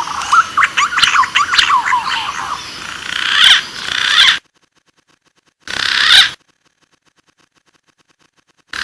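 Green pigeon (punai) calling: a dense run of whistled, warbling notes gliding up and down, which cuts off suddenly about four seconds in. After a silence comes one short burst of the same calls.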